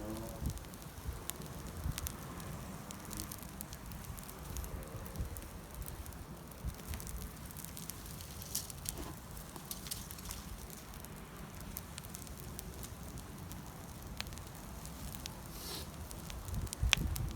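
Wood campfire burning, crackling with scattered small pops and one sharper crack near the end.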